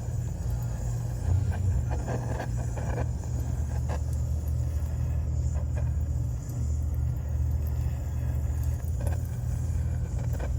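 Gas torch flame burning steadily with a low, even rumble while it heats a pan of furnace oil.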